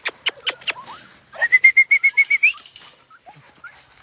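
A quick series of sharp clicks for the first second. Then a person whistles a fast run of about eight short notes on one pitch, the last one rising, to call the puppies.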